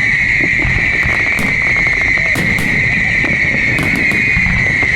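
A fireworks display: several sharp bangs and cracks from bursting shells over a low rumble and a steady high hiss.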